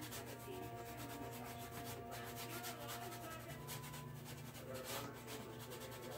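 Paintbrush bristles scrubbing against a stretched canvas in quick short strokes, a soft scratchy rubbing, over a faint steady hum.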